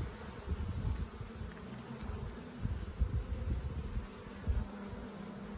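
Honeybees from an opened hive buzzing in a steady hum, with irregular low thumps and rumbles on the microphone.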